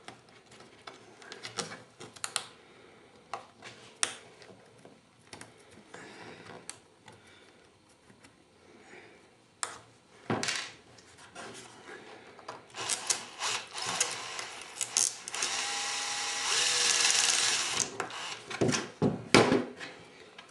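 Scattered clicks and knocks of parts and tools being handled. From about three quarters of the way in, a small electric drill runs steadily for about two seconds, followed by a few sharp knocks.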